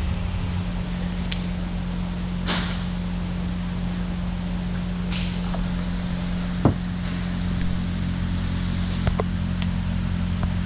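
Steady low machine hum, with a few scattered sharp metallic clicks and one louder clink about two-thirds through.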